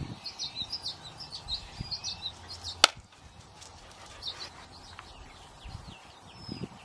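Small birds chirping over and over in short high notes, with one sharp click or knock a little under three seconds in.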